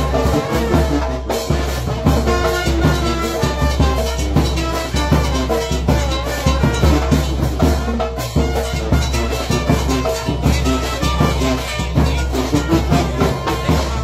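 Live brass band playing dance music: sousaphone and brass horns over a steady bass drum and cymbal beat.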